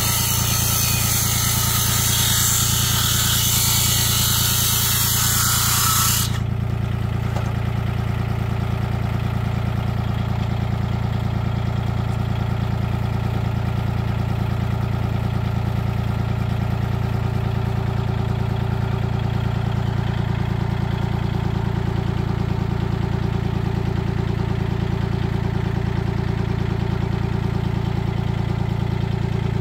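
A DeWalt cordless circular saw cuts through a wooden board for about the first six seconds, then stops abruptly. Under it, a Kubota compact tractor's diesel engine idles steadily throughout.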